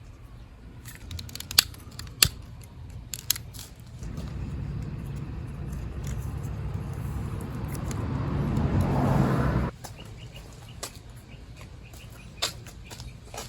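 A heat gun switched on and blowing steadily for about six seconds, getting louder toward the end, then cut off suddenly; it is shrinking heat-shrink tubing over a spliced power cord. Scattered clicks of handling come before and after it.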